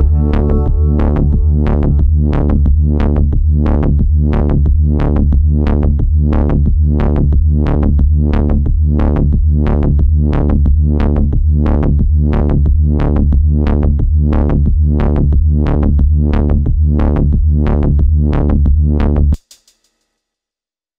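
Electronic music track: a steady beat at about two hits a second over a held low bass. It cuts off suddenly near the end.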